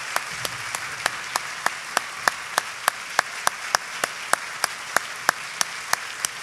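Audience applauding, with sharp claps standing out in a steady beat of about three a second.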